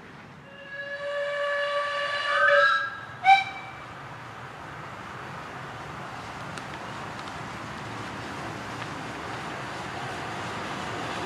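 Miniature-railway steam locomotive whistle: one long blast of about two seconds that bends up in pitch at its end, then a short sharp toot. After it comes the steady running noise of the approaching train, growing slowly louder.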